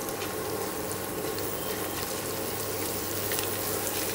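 Chopped onion, green chilies and curry leaves sizzling steadily in hot mustard oil in a kadhai as they are stirred with a silicone spatula, over a steady low hum.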